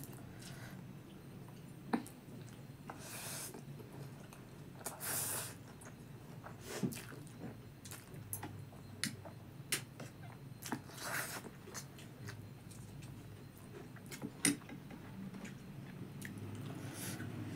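Close-miked eating of chowmein noodles: chewing, with several short hissy bursts as noodles are drawn into the mouth and scattered sharp clicks of a metal fork and spoon against the plate.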